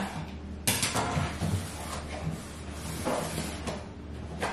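A cardboard appliance box being opened by hand: scraping and rustling of cardboard, with a sharp scrape under a second in and another about three seconds in.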